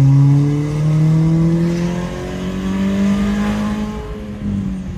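Turbocharged 2.0-litre four-cylinder (B207R) of a Saab 9-3 fitted with a big GTX3582 turbo, accelerating in second gear with the engine note rising steadily. A hiss builds over the middle as it comes on boost, then the revs ease off near the end.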